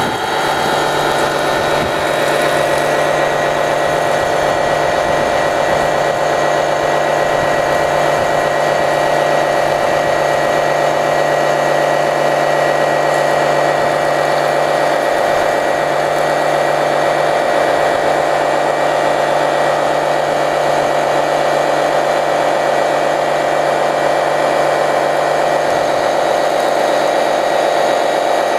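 Small electric motors of RC model fire trucks running with a steady, unchanging whine.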